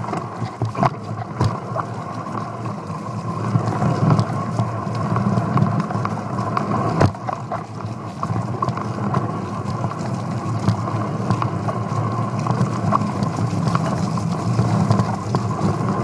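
Mountain bike rolling fast down a rough dirt trail, picked up by a handlebar-mounted camera as a steady rattle and rumble, with a few sharp knocks as the wheels hit bumps.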